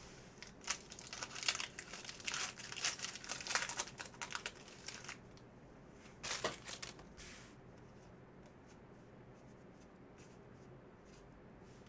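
The wrapper of a baseball card pack is torn open and crinkled for the first few seconds. A couple of short swishes follow, then faint handling of the cards.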